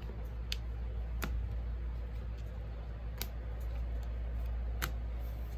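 Tarot cards being handled and laid down in piles on a table: about four sharp card clicks, irregularly spaced, over the steady low hum of an electric fan.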